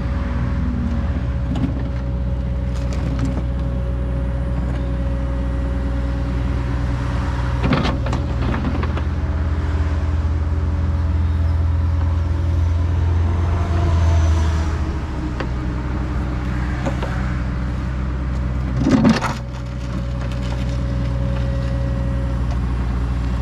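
Excavator's diesel engine running steadily while digging, growing heavier under load for several seconds in the middle, with a sharp clunk about eight seconds in and another near the end.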